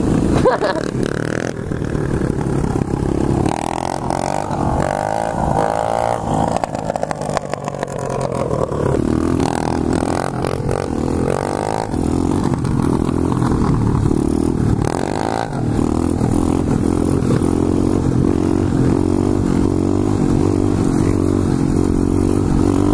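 A 125cc pit bike's single-cylinder four-stroke engine running loud under the rider, revving up and down through the first half, then held at steady high revs while the bike is ridden on its back wheel in a wheelie.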